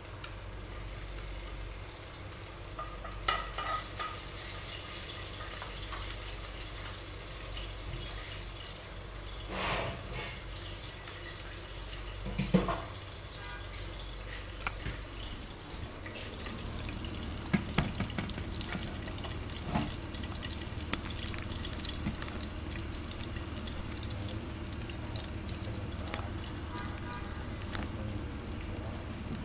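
Chopped garlic sizzling as it sautés in hot oil in a frying pan, with a few sharp knocks and clinks scattered through.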